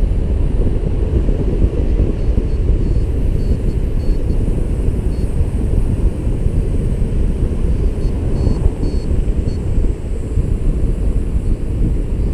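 Wind rushing over the microphone of a paraglider in flight, a steady low rumble.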